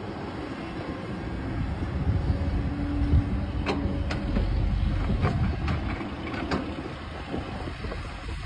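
Kobelco SK200-10 hydraulic excavator's diesel engine running steadily under work, with a run of sharp metallic clanks a few seconds in.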